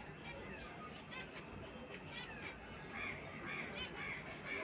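Small caged pet birds calling: short chirps, with a quick run of several near the end.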